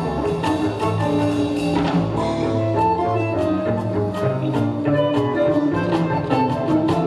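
Live jazz from an accordion quartet of accordion, electric guitar, double bass and drum kit, with the electric guitar playing over a bass line and steady drum ticks.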